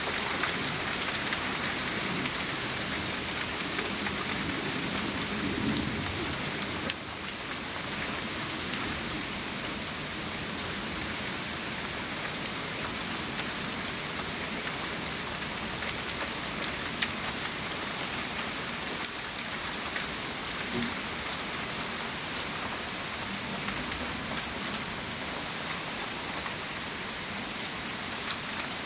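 Sleet (ice pellets) falling steadily on a wooden deck and railing: a dense hiss of fine ticks with a few sharper clicks.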